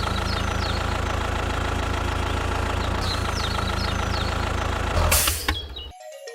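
Tractor engine idling steadily, with small chirps repeating high above it. A brief loud rushing burst comes about five seconds in, and the engine sound then cuts off abruptly near the end.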